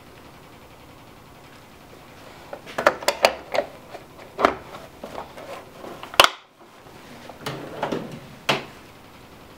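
Clicks and knocks of a metal torque wrench being laid into its hard plastic storage case, with one sharp snap about six seconds in. A steel toolbox drawer then rattles as it slides shut near the end.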